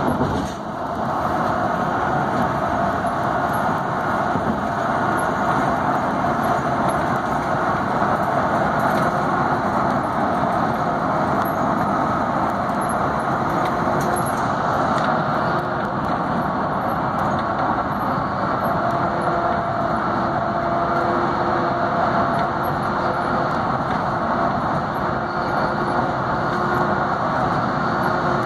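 Steady road and engine noise heard from inside a moving vehicle's cabin, with the tyres running on the concrete interstate pavement at highway speed.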